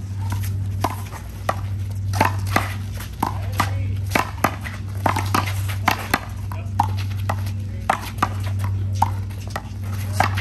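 Handball rally: sharp, irregular smacks of a small rubber ball struck by hand and rebounding off the wall and court, at times several a second.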